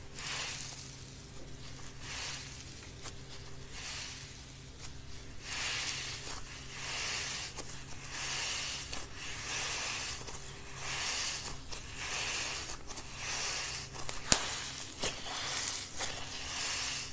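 Green grainy-textured slime being squeezed, folded and pulled apart by hand, giving a crackly, hissing squish that swells and fades about once a second. One sharp click stands out a little after the middle.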